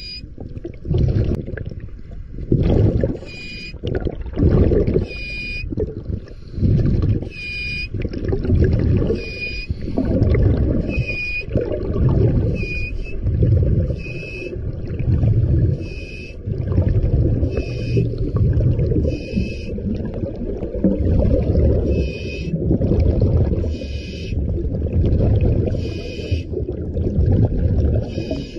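Scuba diver's breathing heard underwater through the regulator: rhythmic rushes of air and bubbling about every one to two seconds, many with a short high whistle.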